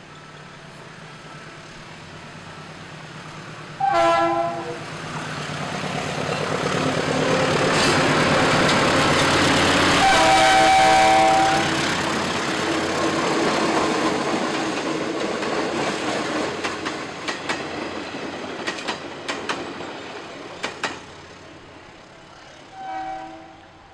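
A train going by: its horn sounds a short blast about four seconds in and a longer blast around ten seconds, while the train's running noise swells and then fades. Wheels clack over rail joints as it passes, and a last short horn blast sounds near the end.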